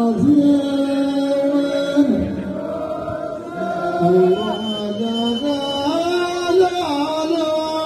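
Ahwach chorus of men chanting in unison, long held notes that step up and down between a few pitches.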